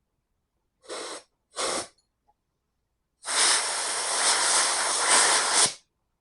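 Pressurised spray hissing through a hollow engine pushrod to clean it out: two short bursts, then a longer one of about two and a half seconds that cuts off sharply.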